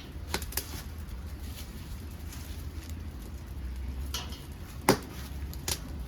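Dead maki (podocarpus) wood crackling as it burns in a homemade secondary-combustion wood stove: a few sharp pops, the loudest about five seconds in, over a low steady rumble.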